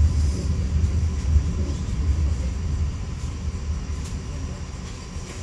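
Low rumble of an electric suburban train at a station platform, growing gradually fainter.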